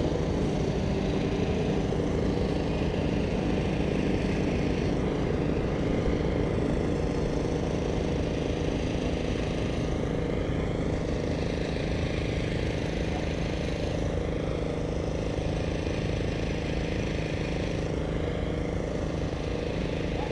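Engine-driven water pump running with a steady, even hum of several tones.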